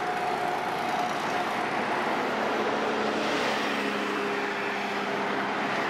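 Road traffic on the roadway beside the walkway: steady tyre and engine noise, with a city bus driving past.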